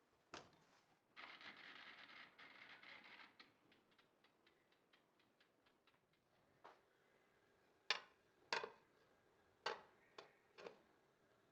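Quiet handling of kitchenware: a rustling scrape lasting about two seconds, then about six separate sharp taps in the second half.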